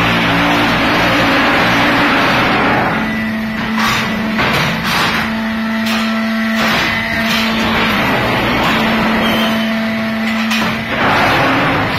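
QT4-15S cement brick-making machine line running: a loud rushing noise for the first few seconds, then a steady machine hum with repeated metallic knocks and clanks, and another rush of noise near the end.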